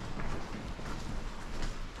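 Footsteps on a hard floor: a few irregular steps and scuffs over a steady low rumble.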